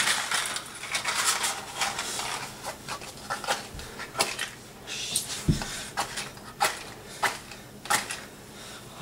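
Crumpled newspaper rustling at a fireplace grate, then a run of short sharp scratches and clicks as hands work at the grate, with a dull knock about halfway through.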